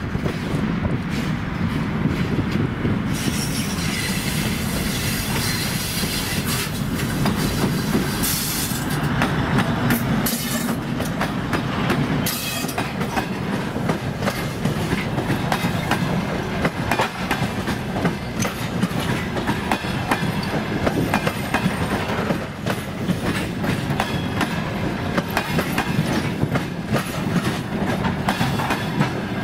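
TEP70 diesel passenger locomotive passing close by with its diesel engine running, followed by a string of passenger coaches rolling past at speed. The wheels clatter over the rail joints in a dense, steady run of clicks.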